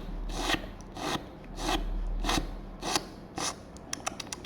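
Teeth grinding as in bruxism: rasping strokes about every 0.6 s, then a quick run of clicks near the end.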